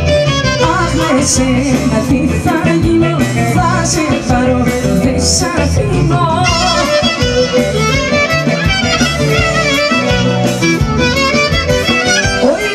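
Live band playing Greek laiko-dimotiko (popular and folk) music: an instrumental passage with a busy melody line over steady bass and rhythm.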